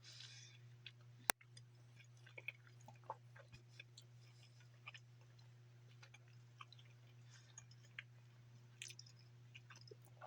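Faint chewing of a bite of chili cheese hot dog: small, scattered wet clicks and crackles over a steady low hum, with one sharp click about a second in.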